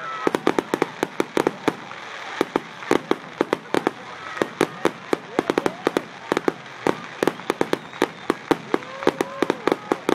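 Aerial fireworks bursting overhead: a rapid, irregular string of sharp bangs and pops, several a second, without a break.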